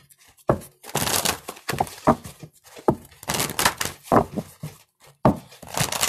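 A deck of oracle cards being shuffled by hand: repeated bursts of rustling cards with several sharp slaps as the cards knock together.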